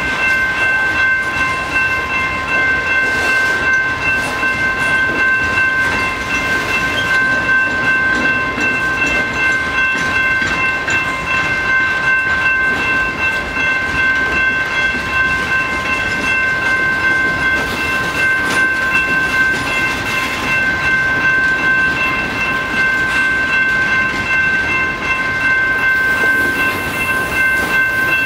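Freight train boxcars rolling past with steady wheel rumble and clatter on the rails, over a continuous high ringing tone from the grade-crossing warning bell.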